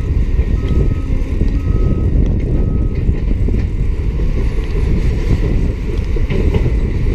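Heavy earthmoving machinery running with a steady deep diesel rumble, a Cat D7E bulldozer at work. A backup alarm beeps four times, about once a second, over the first three seconds, then stops.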